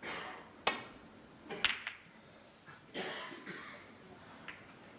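Quiet snooker arena: a few sharp clicks of snooker balls striking each other as the cue ball travels round the table, with a cough or two from the audience.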